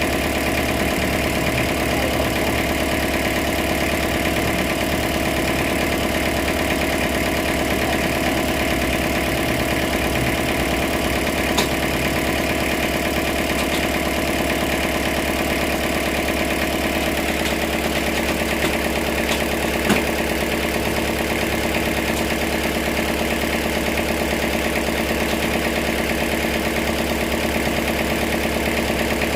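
Sawmill engine running steadily, with a constant hum whose tone shifts slightly partway through, and a couple of faint knocks.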